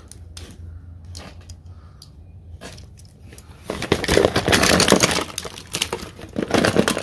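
Hands rummaging through a box of small hard odds and ends: a few light clicks at first, then, a little past halfway, a loud run of clattering and clinking as items are shifted and pulled out.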